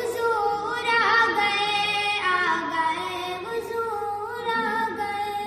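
Naat, an Islamic devotional song, sung by a single voice in long held notes that bend and glide between pitches.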